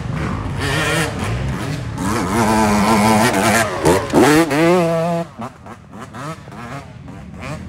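KTM dirt bike engine revving up and down as the bike passes close by, loudest from about two to five seconds in, with a quick drop and rise in pitch near four seconds, then fading as it rides away.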